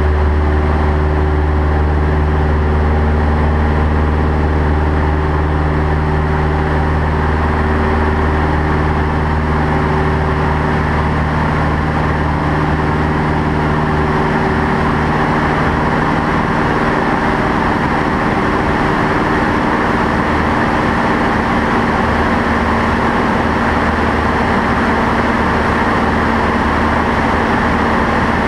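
Light single-engine propeller aircraft heard from inside the cockpit during aerobatics: steady engine and propeller drone under loud rushing airflow. The low engine tones fade away about halfway through while the wind rush carries on.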